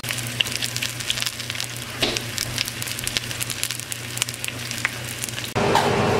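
Battered pike pieces frying in hot oil in a frying pan: steady sizzling with many sharp crackling pops. Shortly before the end it cuts abruptly to a louder steady hum.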